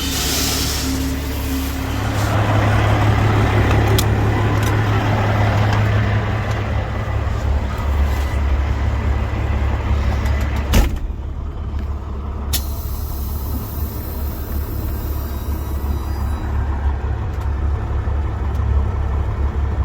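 Heavy diesel engine running steadily, with a burst of hissing about two seconds in and a sharp click near the middle.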